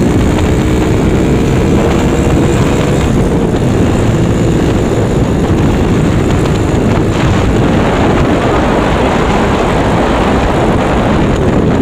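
Motorcycle with a Honda Megapro single-cylinder four-stroke engine, fitted in a Yamaha Mio scooter frame, running while being ridden, its pitch rising slightly over the first few seconds, under heavy wind rush on the microphone.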